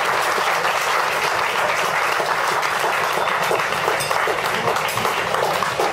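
Audience applauding, a steady patter of many hands clapping at once.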